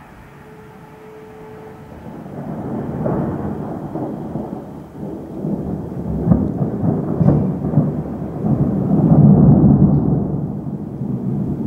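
Rolling thunder following a lightning flash. A low rumble builds from about two seconds in, with two sharp cracks around the middle. It is loudest near the end, then begins to ease.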